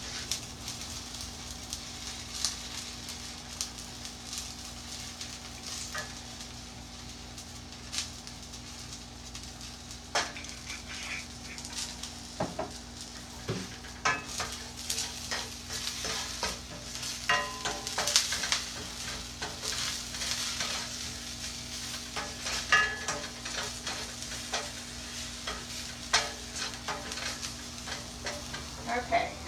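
Scallions, garlic and ginger sizzling in olive oil in a stainless steel frying pan, with a wooden spoon scraping and knocking against the pan in short irregular strokes as they are stirred.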